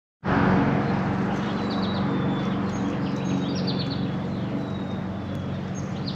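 Small birds chirping in short quick series, over a steady low hum.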